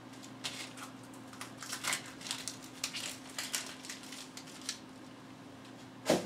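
Dry papery onion skin being peeled off a halved onion by hand, a run of short crisp crackles and rustles, then one sharp knock near the end.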